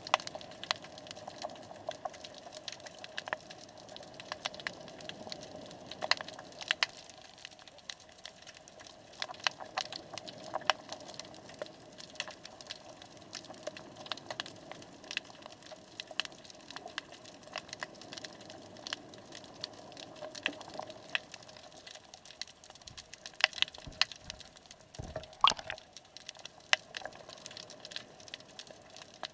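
Underwater sound picked up by a submerged camera: scattered sharp clicks and crackles over a faint steady hum.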